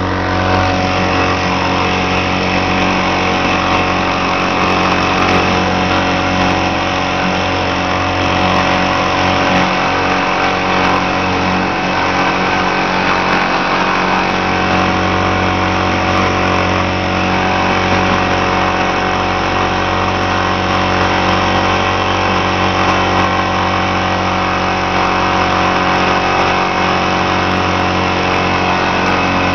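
An old 60 hp Mariner outboard motor running steadily under way at speed, over the rush of the churning wake.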